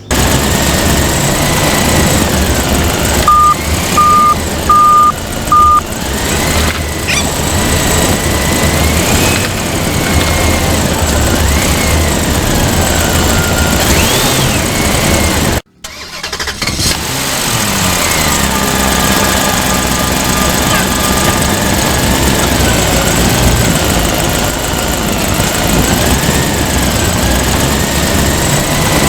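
Electronic engine sound effect from a battery-powered toy vehicle running continuously, with a wavering pitch. Four short, evenly spaced beeps come a few seconds in, and the sound drops out briefly about halfway before starting again.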